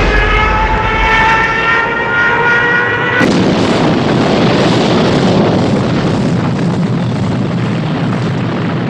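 A loud whine, like a siren, slowly rising in pitch. About three seconds in it is cut off by a sudden blast that gives way to a continuous rumble of explosions and gunfire.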